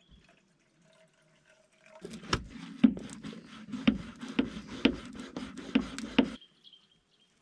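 Bialetti stovetop milk frother being pumped by hand, its mesh plunger driven up and down through the milk about two strokes a second, with a knock on each stroke. The pumping starts about two seconds in and stops about six seconds in.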